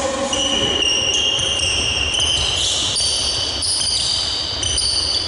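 Sneakers squeaking on a hardwood gym floor during footwork drills: a run of high, overlapping squeals that jump in pitch every half second or so.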